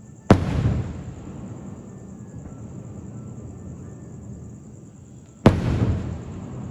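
Two fireworks bursts, sharp bangs about five seconds apart, each dying away within a second.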